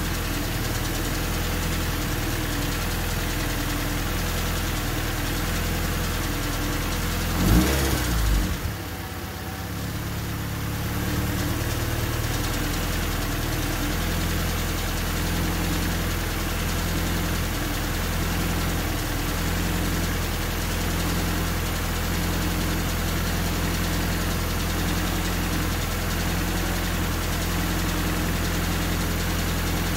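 Honda D16Y8 1.6-litre SOHC VTEC four-cylinder running at idle. About eight seconds in there is a brief loud surge, then the idle sags and picks back up before settling again. This is the unsettled idle the owner is trying to cure, and it persists after the injectors were rewired.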